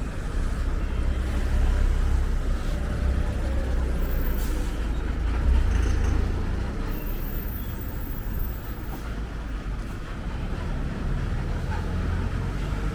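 Wind buffeting the microphone as a continuous low rumble that rises and falls, over a steady wash of seaside ambience.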